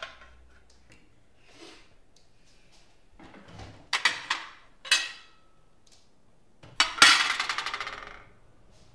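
Dishes and cutlery clinking on a dining table: a few sharp clinks about four to five seconds in, then a louder rattling clatter about seven seconds in that dies away over a second.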